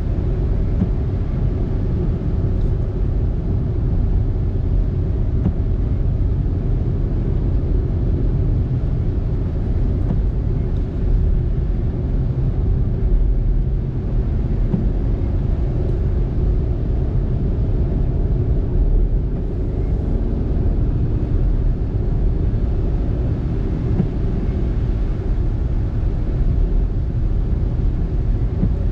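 Car driving at steady speed: a continuous low rumble of road and tyre noise.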